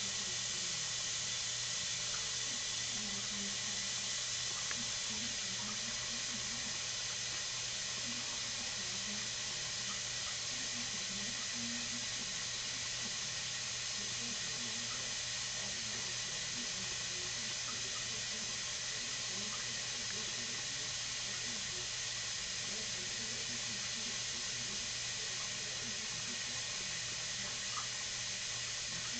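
Washing machine filling with water: a steady hiss of running water, unchanging throughout.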